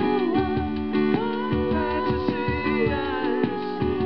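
Live acoustic song: a man singing a wavering melody over a strummed jumbo acoustic guitar, with steady held low notes underneath.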